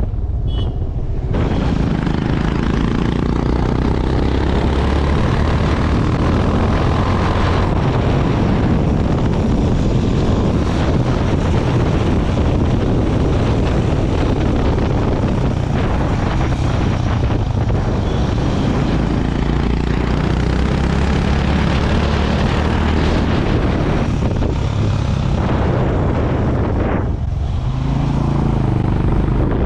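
Honda CB350 RS's 348 cc air-cooled single-cylinder engine thumping under way on the move, over a steady rush of wind and road noise. Near the end the rush dips briefly and the engine note shifts.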